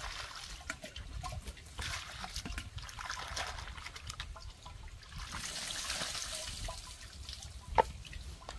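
Water poured from a jug into a plastic basin of leafy greens, then hands swishing and rubbing the leaves in the water, splashing in uneven spells. A short sharp click near the end.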